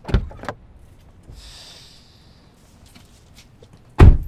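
Sharp knocks: a quick group of three or so at the start, then one louder single knock near the end, which lands as a man stands at the car's side window, fitting a knock on the window glass.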